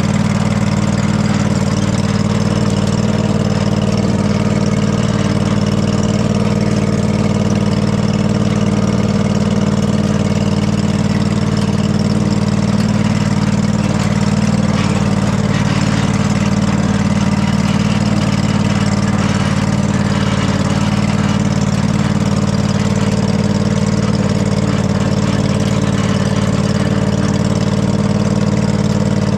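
Riding lawn mower engine running at a steady speed, without a break.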